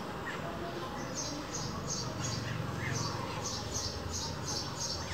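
Short, high chirps repeating about three to four times a second, broken by brief pauses, over a low steady hum.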